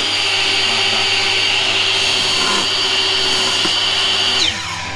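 Electric sliding miter saw running at full speed with a steady high whine as its blade is brought down through a piece of wood. About four and a half seconds in the trigger is released and the motor winds down in a falling whine.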